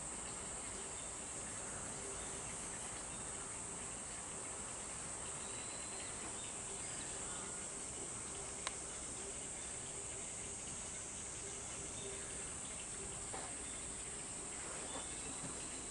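Steady, high-pitched drone of insects, with one brief click a little past halfway.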